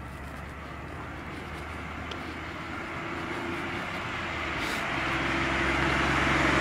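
A car coming along the road and passing close by: the tyre noise and engine hum grow steadily louder and are loudest near the end.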